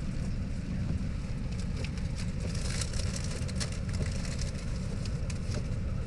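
Steady low rumble of a car's engine and tyres heard from inside the cabin while driving, with scattered light ticks over it.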